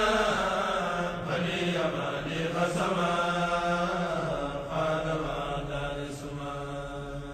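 Voices chanting an Arabic Mouride religious poem in long, held melodic lines, fading slowly toward the end.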